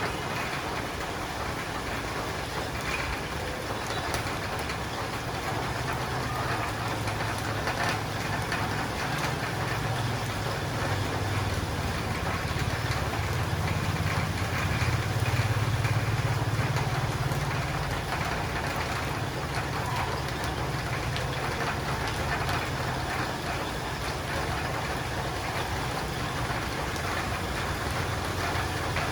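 Steady rain on a roof and windows, with a low rumble underneath that builds through the first third, is loudest around the middle, and then eases off.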